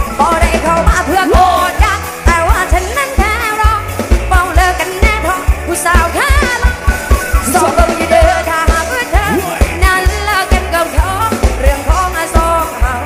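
Live band music: a woman sings into a microphone with a wavering, ornamented melody over drums and bass guitar keeping a steady, heavy beat.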